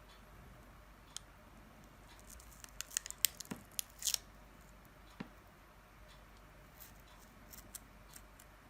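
Faint, scattered clicks and light scraping of small hand tools working against a plastic phone cover, lifting off its info sticker. There is a quick cluster of ticks about three to four seconds in.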